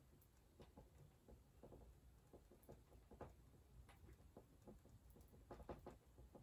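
Near silence, with faint, irregular taps and light scratches of a small paintbrush dabbing paint onto a canvas, a few quick ones close together near the end.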